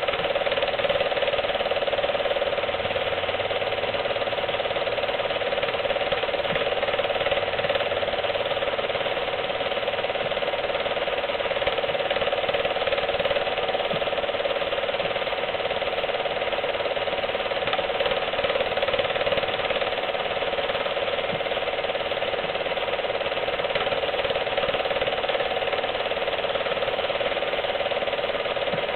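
Home-movie film projector running steadily, its mechanism making a continuous, even sound with a steady hum.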